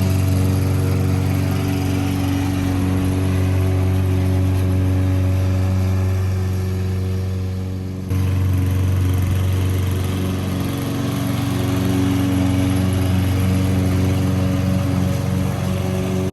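Lawn mower engine running steadily and loudly. It fades a little about halfway through, then comes back at full level.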